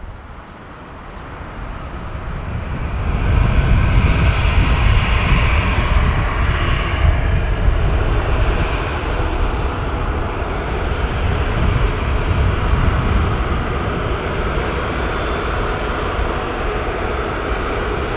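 Jet engines of an Airbus A380, four Rolls-Royce Trent 900 turbofans, running at taxi power: a steady deep rumble with a hiss on top. It fades up over the first few seconds and then holds steady.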